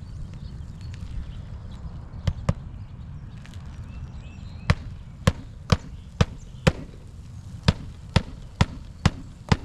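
Hammer driving roofing nails through asphalt shingles: two quick strikes, then two runs of sharp taps about two a second.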